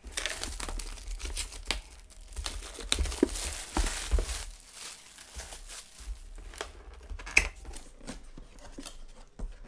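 Clear plastic shrink-wrap being torn and peeled off a cardboard retail box, crinkling densely for the first four seconds or so. After that come scattered rustles of plastic and cardboard as the box flap is worked open, with one sharp click about seven seconds in.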